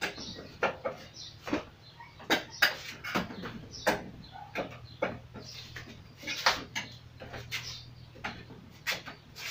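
Wooden Wing Chun dummy (mook yan jong) being struck: irregular sharp wooden knocks and clacks, roughly two a second, as forearms and palms hit its wooden arms and trunk.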